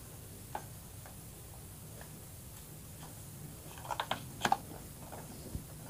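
A few faint clicks, then a short cluster of sharper clicks about four seconds in: a mains plug being handled and pushed into a power-strip socket.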